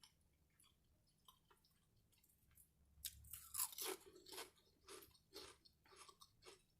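Close-up chewing of crunchy potato chips: after a quiet start, a run of crisp crunches begins about three seconds in, roughly two a second.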